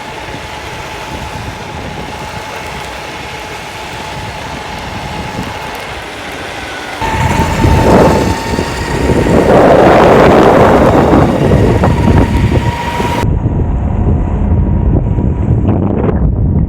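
Electric skateboard being ridden: a steady whine over rolling wheel and road noise. About seven seconds in it gets much louder, with heavy low rumble and wind buffeting the microphone.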